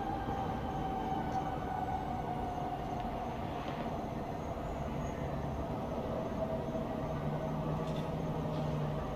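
Steady rumble of distant town traffic, with a faint tone slowly dropping in pitch throughout and a low hum joining in near the end.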